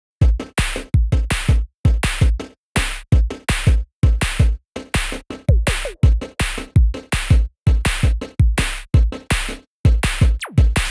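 Electronic background music with a punchy drum-machine beat, about two to three kicks a second, broken by short silent gaps.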